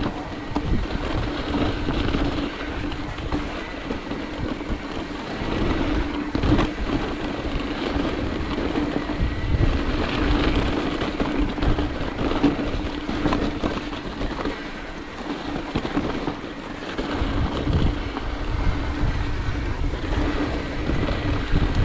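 Mountain bike riding down a rough trail: tyres rumbling over dirt and rock and the bike rattling with frequent knocks over bumps, with a steady hum underneath and wind on the microphone.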